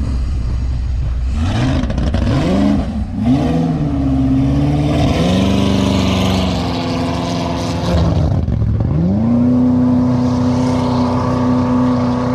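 Jet boat's junkyard 5.3-litre LS V8, breathing through open 8-into-1 headers, revved in a few quick blips and then pulling away under throttle. Its pitch climbs and holds, drops about eight seconds in, then climbs again and holds high, the exhaust echoing.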